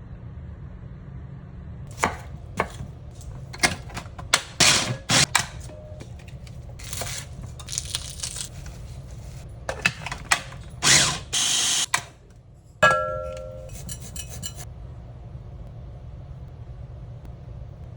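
Kitchen food-prep sounds: a run of sharp knocks and clicks, two longer rustling, hissing stretches, then a sharp clank with a brief metallic ring about 13 seconds in, followed by quick light ticks, all over a steady low hum.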